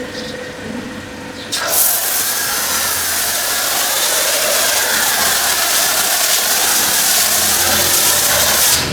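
Pressure washer spraying a jet of water, a steady hiss that starts about one and a half seconds in and cuts off sharply near the end.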